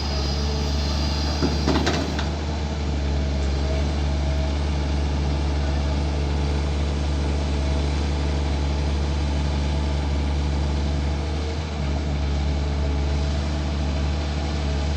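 Long-boom excavator's diesel engine running steadily under load, with a brief metallic clatter about a second and a half in.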